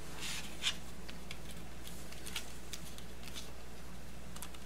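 Hands handling a plastic 3.5-inch floppy disk shell: a soft rub and a few faint plastic clicks and ticks, over a steady low hum.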